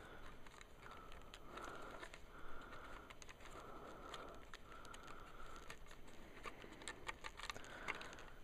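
Faint scattered clicks and small rustles of fingers handling the decoder, plug and wires inside an HO-scale model locomotive.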